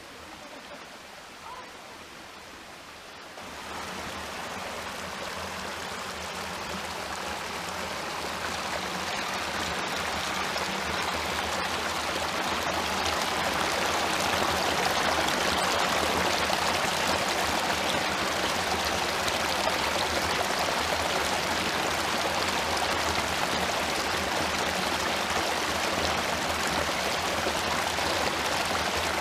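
Small creek waterfall pouring over a rock ledge: a steady rush of splashing water. It is faint at first, comes up about three and a half seconds in, grows louder over the next ten seconds, then holds steady.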